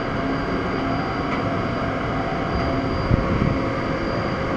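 Niigata SPN-50 horizontal machining center running, its spindle head traversing along the Y axis: a steady mechanical whir and hum with a faint high steady tone. A brief low thump about three seconds in.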